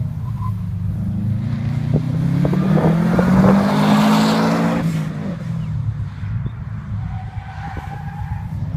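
Subaru Impreza STI's turbocharged flat-four engine accelerating hard past close by, its note rising and loudest around three to four seconds in, then falling away sharply about five seconds in as the car moves off. A fainter thin squeal follows near the end.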